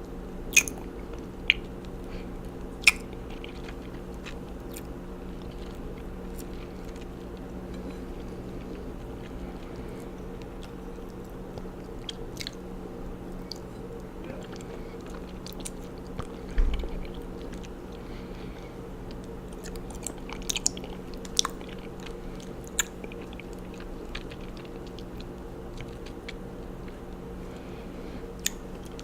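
Close-miked chewing of raw honeycomb: sticky, wet mouth sounds with scattered sharp smacks and clicks over a steady low hum, and a dull thump about halfway through.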